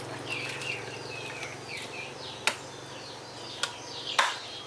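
Small birds chirping rapidly and continuously, with three sharp knocks, the loudest near the end, over a low steady hum.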